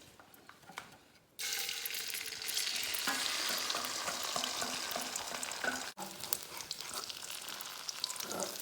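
Beaten eggs with chopped greens going into hot sesame oil in a pan, starting a loud crackling sizzle about a second and a half in, with small clicks from the food being stir-fried. The sizzle briefly breaks off near six seconds, then carries on.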